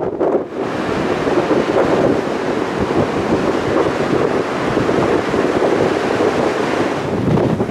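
Ocean surf breaking on a beach, a steady loud wash of water, with wind blowing over the microphone.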